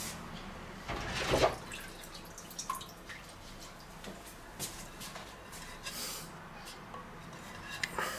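Faint off-screen kitchen noises with water dripping: a short louder rush about a second in, then a few light clicks and taps.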